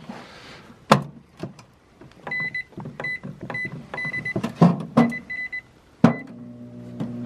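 Microwave oven keypad beeping as several buttons are pressed, with a few knocks. About six seconds in, a loud knock is followed by the oven starting up with a steady hum.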